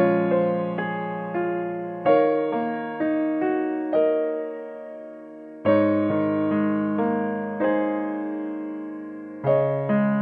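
Background music: a gentle, slow piano piece, with chords struck every second or two and left to fade.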